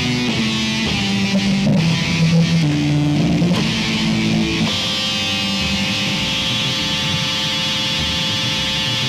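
Electric guitar playing shifting low notes in a live rock improvisation. About halfway through it gives way to a steady held tone with many overtones, a long sustained drone.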